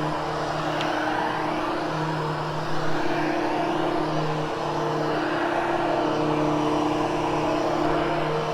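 Hoover HushTone upright vacuum running steadily over carpet: a constant motor hum under a rush of airflow.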